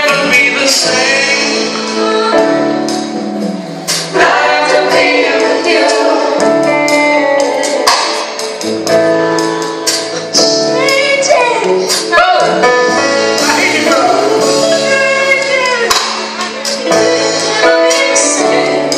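Gospel song playing: a sung lead vocal over sustained instrumental accompaniment with regular percussion hits.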